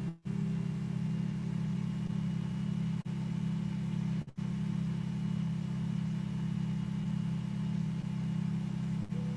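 A steady low hum or drone, even in level, briefly cutting out right at the start and again about three and four seconds in.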